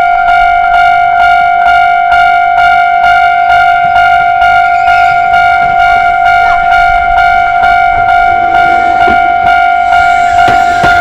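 Japanese railway level-crossing electronic warning bell ringing a steady 'kan-kan' at about two and a half strikes a second. Near the end, the rumble of an approaching electric train starts to rise underneath it.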